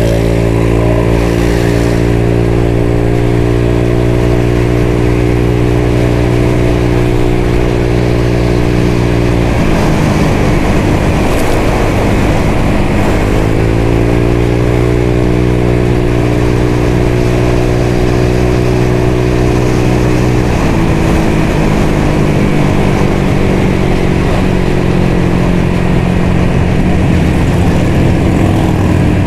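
A CVT scooter's single-cylinder engine through an aftermarket DSM exhaust, pulling under throttle and holding steady revs. About a third of the way in the throttle closes, then the engine pulls up to steady revs again. For the last third it settles to a lower steady note, over constant wind rush.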